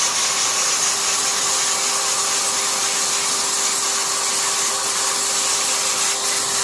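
A motor-driven cleaning tool runs steadily on the dirty washing machine, a loud hiss over a constant motor hum.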